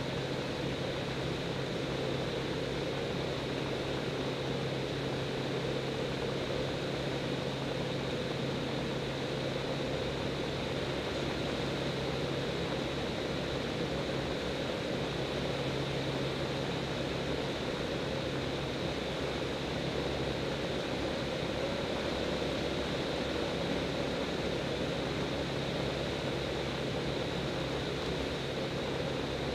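X-Air Hanuman light aircraft's engine and propeller droning steadily at a constant pitch in flight, heard from inside the cockpit.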